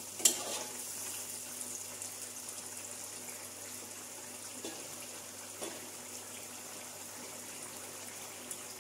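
Amla pickle simmering in spiced oil and water in a wok, giving a steady soft sizzle and bubbling. A single click of the spatula against the pan comes just after the start.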